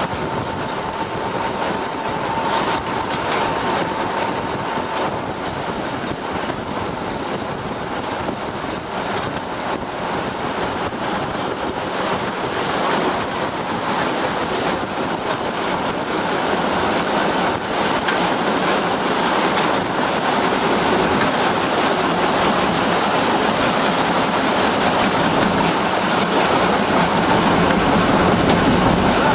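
TU7A narrow-gauge diesel locomotive running along the line, heard from the cab: a steady running noise with wheels clattering over the rail joints. A thin high tone sounds for the first few seconds, and the noise grows slowly louder.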